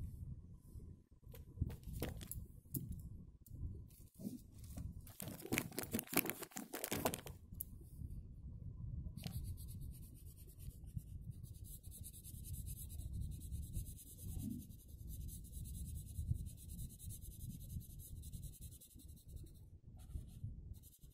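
Green felt-tip marker scrubbing back and forth on paper while colouring in, a steady scratchy hiss that starts about nine seconds in. Before that come a few scattered rustles and a louder rustling stretch of handling noise.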